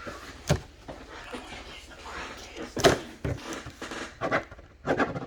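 Handling noises on a table: a few sharp knocks, the loudest about three seconds in, with rustling between them.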